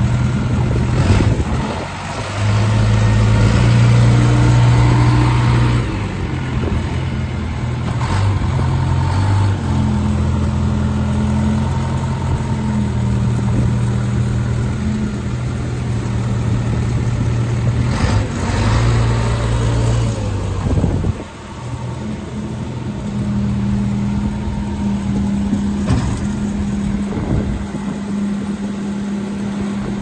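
Case 580G backhoe loader's diesel engine running while the machine drives and turns, its revs rising and falling several times and dropping back sharply about two-thirds of the way through. A few brief knocks come over the engine.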